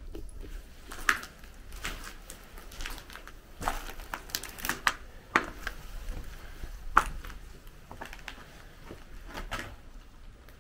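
Footsteps crunching over rubble and debris: irregular crunches and cracks, the sharpest about a second in and around seven seconds in.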